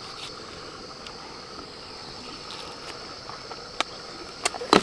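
Steady high-pitched insect buzz, with a few sharp clicks or snaps near the end, the loudest just before it ends.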